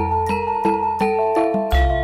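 Background music: a melody of struck, ringing bell-like notes, about three a second, over long sustained bass notes.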